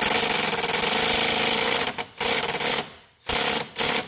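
Cordless impact driver hammering on a seized alternator belt-tensioner bolt that will not break free. It runs in one long run of rapid rattling blows, then in three shorter trigger bursts near the end.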